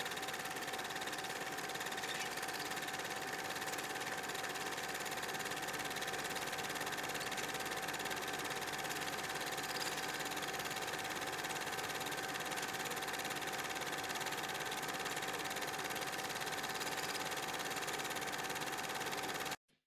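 Steady, rapid mechanical clatter with a constant hum tone, running evenly and cutting off suddenly near the end.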